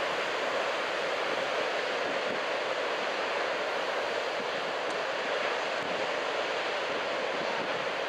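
Large ocean waves breaking in a steady surf wash, with strong wind rushing over the microphone.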